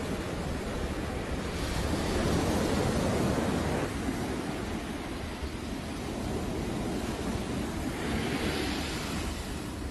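Surf breaking and washing up on a sandy beach, a steady rush that swells twice.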